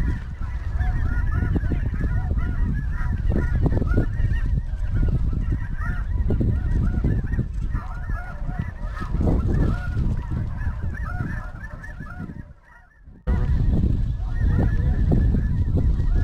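A large flock of snow geese calling, with many high, yelping honks overlapping into a continuous chatter. Heavy wind rumbles on the microphone underneath. The sound cuts out for under a second about three-quarters of the way through.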